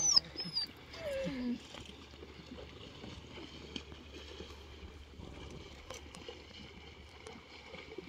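A few short, high chirps and a brief whining animal call in the first second and a half, then faint splashing and trickling as horses wade through a shallow river.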